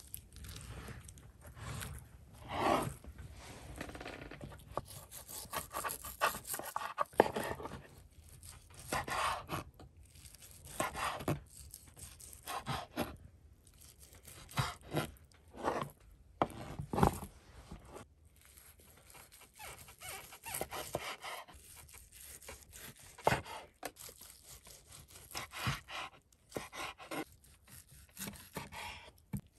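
Kitchen knife slicing through boiled horse meat on a wooden cutting board, in irregular sawing, scraping strokes with now and then a sharp knock of the blade against the board.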